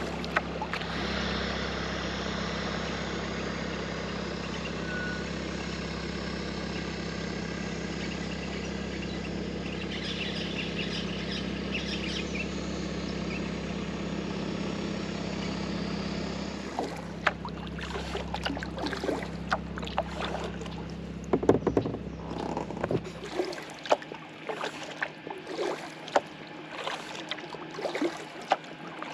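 A steady low hum for the first half, then kayak paddle strokes dipping and splashing in river water, with irregular splashes and knocks.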